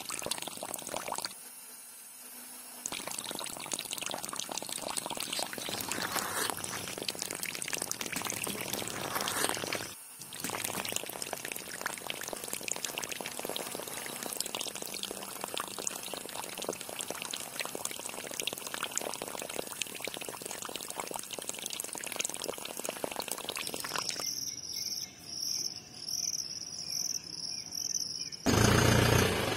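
Water pouring and splashing from a small homemade pump's outlet pipe into a clay pot. Near the end come a few seconds of rhythmic high chirping, then the louder buzz of the small DC motor that drives the pump.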